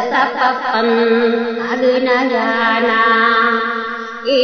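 A solo voice chanting a slow melody, holding long wavering notes. A new phrase begins just before the end.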